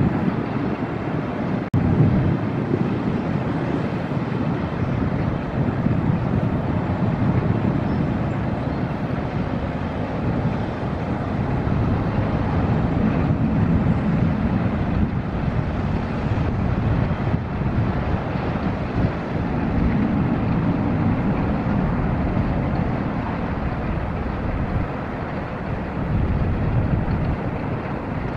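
Inland motor cargo ship's diesel engine running steadily as the vessel passes at close range, mixed with wind rumble on the microphone.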